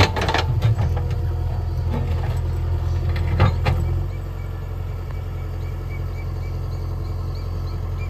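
JCB 3DX Xtra backhoe loader's diesel engine running steadily while the backhoe bucket pushes a large boulder, with a few sharp knocks of bucket and rock at the start and again about three and a half seconds in. The engine eases a little about four seconds in.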